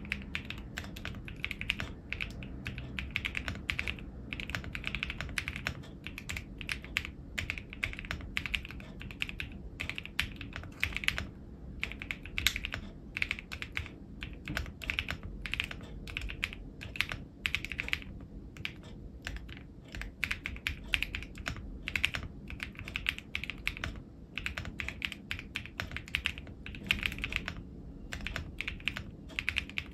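Fast, continuous typing on an AKKO ACR75 v2 mechanical keyboard fitted with KAISYA switches: a dense run of key clicks and clacks, with a couple of short pauses.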